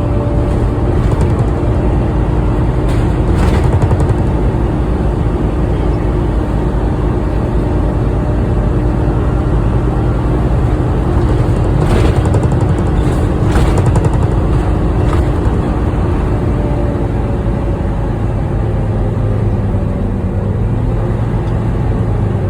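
Volvo B9TL double-decker bus running, with its loud, steady vacuum-cleaner-like 'hoover' whine over the engine rumble; the whine holds a steady pitch and then drops near the end. A few sharp knocks and rattles come a few seconds in and again around the middle.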